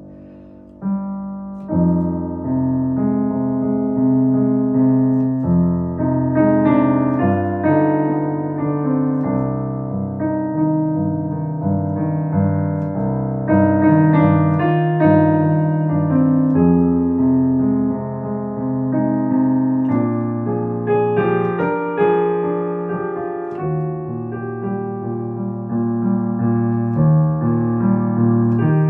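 Solo piano playing a slow piece of chords with a melody above, each note struck and then fading; the playing comes in about a second in.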